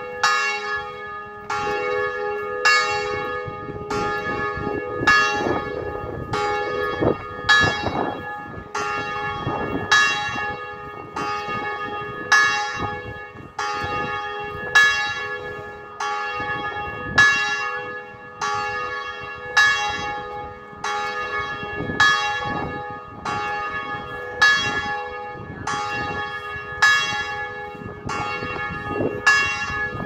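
Liverpool Metropolitan Cathedral's tower bells ringing in a steady repeating sequence, a strike about every two-thirds of a second, each bell still ringing as the next is struck.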